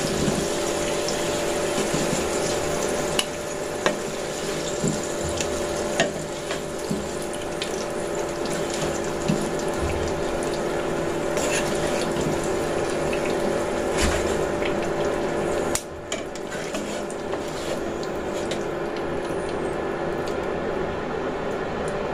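Spice-coated potatoes frying in hot oil in a wok, the oil sizzling steadily, with scattered clicks and scrapes of a wire mesh skimmer against the pan as the potatoes are scooped out. A steady low hum runs underneath.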